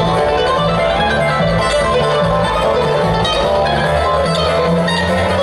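Bluegrass band playing live: acoustic guitar picking over banjo and upright bass, at a steady level.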